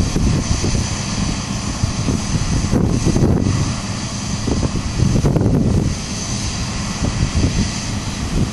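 Heavy farm machinery running steadily at harvest, a deep, continuous engine rumble with a faint high whine, and wind buffeting the microphone.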